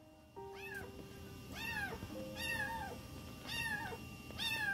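A kitten about seven weeks old meowing over and over, about five short calls roughly a second apart, each rising and then falling in pitch.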